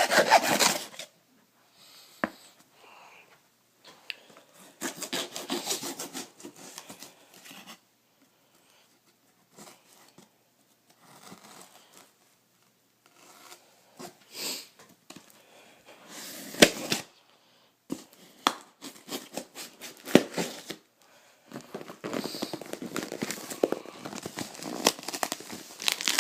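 A cardboard shipping box being torn open and its packing handled: irregular bursts of tearing, rustling and crinkling, with sharp knocks and short pauses between.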